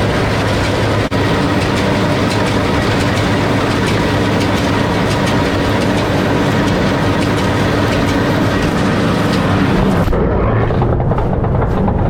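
Farm tractor engine running steadily under a loud mechanical din; about ten seconds in the high hiss drops away, leaving a lower rumble.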